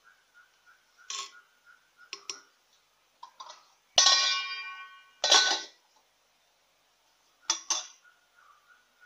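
Cooking-utensil clatter: a metal spoon knocking a few times against a clay pot. About four seconds in comes a loud clang with a ringing metallic tail, typical of a stainless steel lid being struck or set down. A second loud knock follows a moment later, and two quick clinks come near the end.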